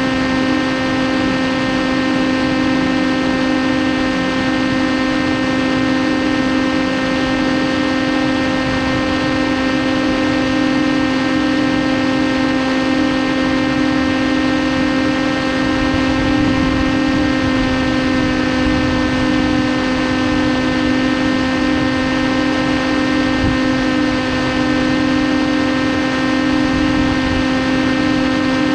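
TBS Caipirinha 2 FPV flying wing's electric motor and pusher propeller running at a constant throttle: a steady drone with several higher tones above it, holding one pitch throughout.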